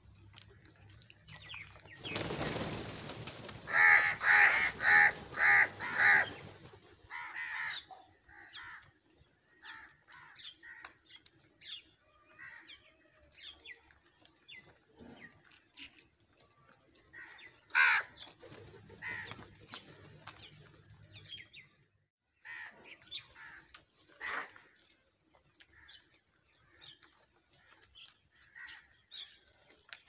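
A flock of house crows cawing: five loud caws in quick succession a few seconds in, over a rush of flapping wings, then scattered shorter calls with one loud caw about halfway through.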